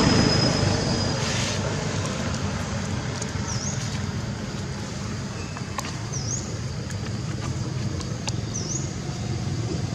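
Outdoor ambience of a steady low rumble like distant road traffic. A bird gives a short chirp that dips and rises in pitch, three times about two and a half seconds apart.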